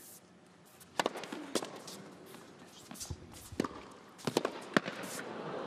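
Tennis rally: sharp pops of racket strikes and ball bounces at irregular intervals of about half a second to a second and a half, with crowd murmur swelling toward the end.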